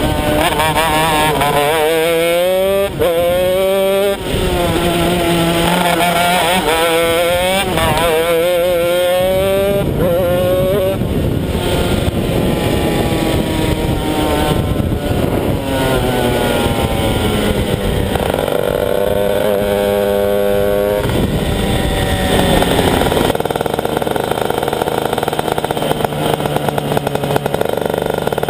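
Honda CR125 two-stroke single-cylinder engine of a shifter kart pulling hard through the gears, its pitch climbing and dropping back with each upshift. It then winds down, revs up once more, and runs at lower, steadier revs near the end as the kart slows.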